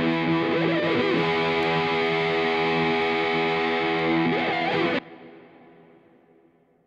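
Background music: a distorted electric guitar sustains a chord, stops abruptly about five seconds in, and leaves a ring that fades out.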